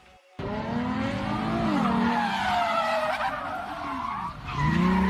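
A car drifting, its tyres squealing over a revving engine, the pitch rising and falling as it slides.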